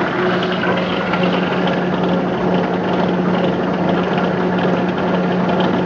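Large Gorton vertical manual mill running, its spindle turning an edge finder: a steady machine hum under an even, rushing noise.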